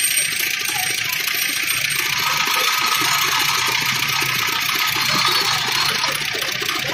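Motor-driven sugarcane juice press running steadily with a constant hum, as cane is fed through its steel rollers with many small irregular ticks.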